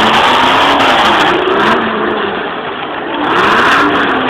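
Demolition-derby vehicle engines revving hard, their pitch rising and falling over and over.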